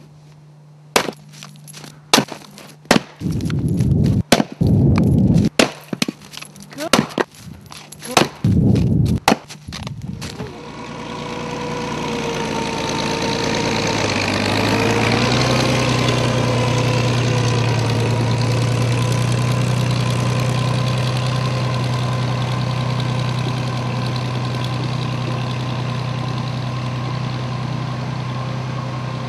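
Firewood being split on a chopping block: about a dozen sharp knocks of wood over ten seconds. Then a farm tractor's engine comes in and runs steadily, louder for a few seconds before it levels off.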